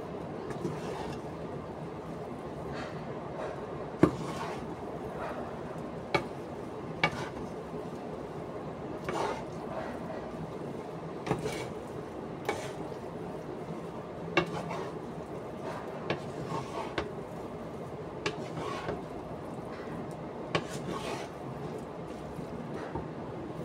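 Wooden spatula stirring and tossing a stir-fry of papaya leaves and tempeh in a non-stick frying pan: scraping along the pan with irregular sharp knocks of the spatula against its rim, the loudest about four seconds in, over a steady hiss.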